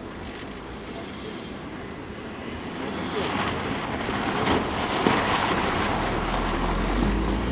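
Volkswagen Tiguan engine revving as the SUV drifts on packed snow, its spinning tyres hissing and throwing up snow. The sound grows louder about three seconds in as the car slides close by, with a deep rumble near the end.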